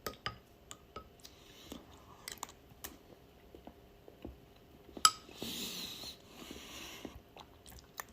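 A dog eating from a bowl, chewing and crunching its food with scattered sharp clicks. The loudest click comes about five seconds in.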